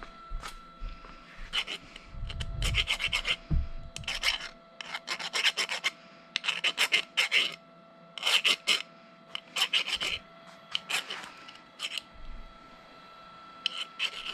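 Hand file rasping back and forth on the cut end of a threaded metal rod, deburring it so the nut threads on cleanly. Quick scraping strokes come in several bursts with short pauses and stop about 11 seconds in.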